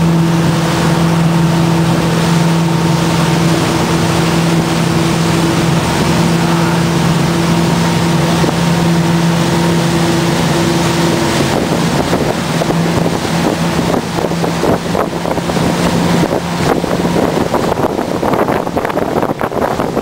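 Motorboat engine running steadily at speed while towing, over the rush of wind on the microphone and churning water. The engine hum fades in the second half, leaving mostly wind buffeting and water.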